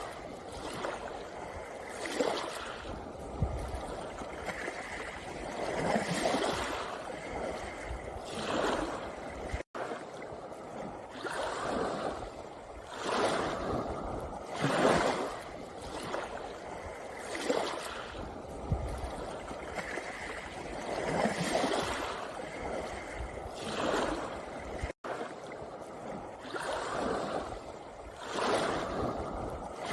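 Small sea waves washing in and out over a pebble beach: a rushing hiss that swells every second or two. The sound cuts out briefly twice.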